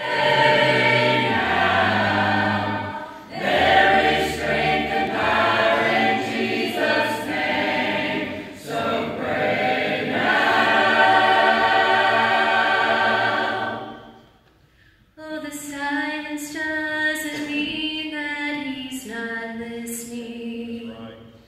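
Mixed church choir singing together. The singing stops about 14 seconds in, then starts again more softly a second later.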